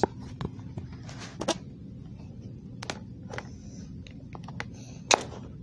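Handling noise: scattered clicks, taps and brief rustles as a flathead screwdriver is fetched and brought to the laptop, with a sharper knock near the end.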